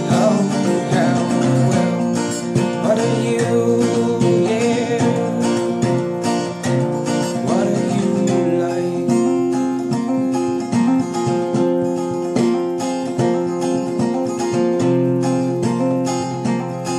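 Steel-string acoustic guitar strummed in a steady, even rhythm of chords, an instrumental passage between sung lines.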